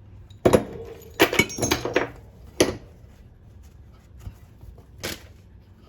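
Metal tools clinking and knocking against lawnmower engine parts while a fastener is being worked loose: a sharp knock about half a second in, a quick run of clinks around one to two seconds, then single knocks near three and five seconds.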